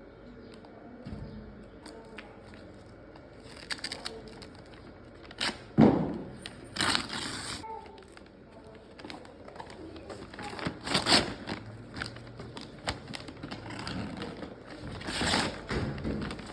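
Gift packaging being unwrapped: paper and plastic crinkling and rustling in several short bursts, loudest about six to seven seconds in.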